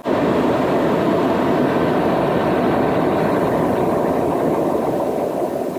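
Steady cabin noise of a HondaJet in its climb: the rush of its GE Honda HF120 turbofan engines and the airflow past the fuselage, even and unchanging.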